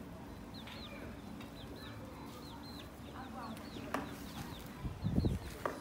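Chicks peeping in a steady run of short high calls, several a second, with a hen clucking softly now and then. A sharp click about four seconds in, and a low thud a second later.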